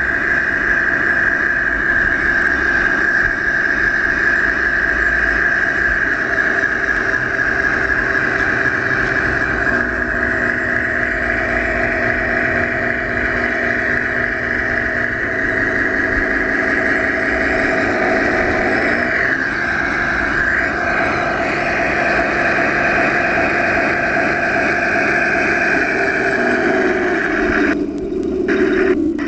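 1/16-scale Tamiya RC Jagdpanther tank driving, a steady mechanical whine that steps up and down in pitch several times as it changes speed.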